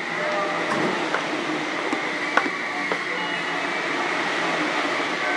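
Steady running noise inside the motor car of a JR East E233-series electric train, heard from inside the cabin, with a few sharp clicks, the loudest about two and a half seconds in.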